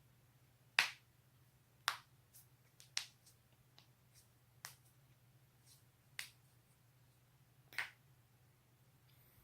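A person's joints cracking: about six sharp, separate pops spread unevenly over a few seconds, the loudest about a second in, with a few fainter clicks between them, over a faint steady low hum.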